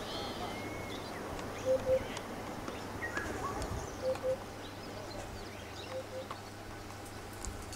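Birds calling: a low two-note call repeats about every two seconds, with scattered higher chirps and short whistles between.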